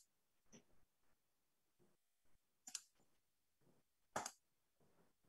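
Near silence broken by a few faint computer mouse clicks as screen sharing is set up on a video call: a single light click, then two brief double clicks about a second and a half apart.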